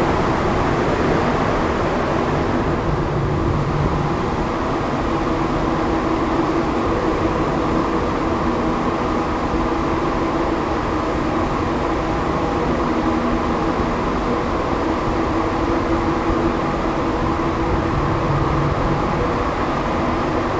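Montreal Metro Azur rubber-tyred train running, heard from inside the car: a steady loud rumble with several steady humming tones through it.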